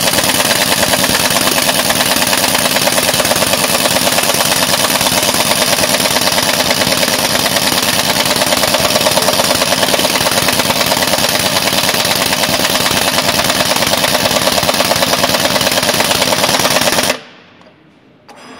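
Pneumatic impact wrench hammering continuously as it tightens heavy bolts, a loud, fast rattle that cuts off suddenly near the end.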